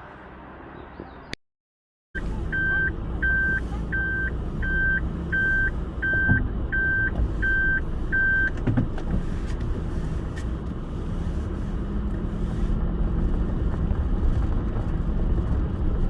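A car's electronic warning beeper sounding nine evenly spaced beeps, about one every three-quarters of a second, over a steady low rumble. The beeps follow a second of near silence near the start.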